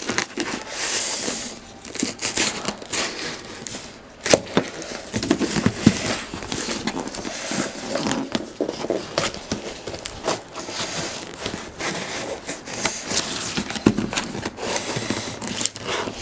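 A stubborn model-airplane box being torn open by hand: continuous ripping, crinkling and scraping of the packaging, with a few sharp snaps, the clearest about 4 s in and again near the end.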